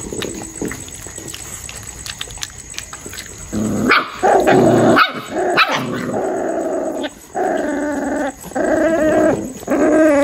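Puppies feeding together from a metal bowl break into growling and barking at each other over the food about a third of the way in. The noise comes in several loud bursts, with a couple of sharp barks among them.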